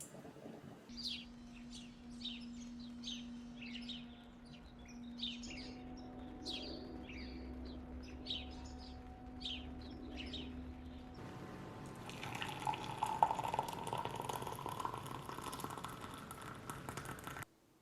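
Small birds chirping in quick, separate calls over a steady low hum. About eleven seconds in this gives way to a steadier rushing noise with light clicks, which stops suddenly near the end.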